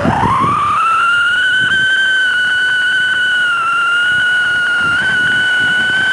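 Siren firecracker, a spark fountain with a built-in whistle, screaming a loud, shrill siren tone. The tone rises in pitch over the first second and then holds steady.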